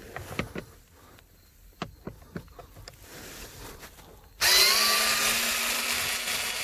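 A few light clicks as the bit is set, then a power drill-driver starts about four seconds in and runs steadily, backing out a screw that holds the dash switch panel.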